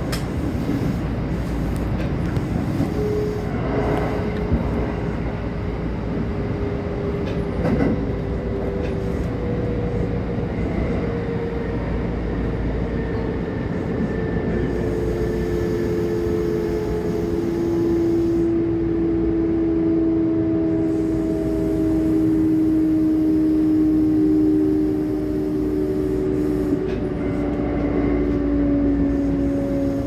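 Electric commuter train running, heard from the driver's cab: a steady rumble of wheels on rail, a few single knocks from the track, and a traction-motor whine that glides slowly down in pitch as the train slows.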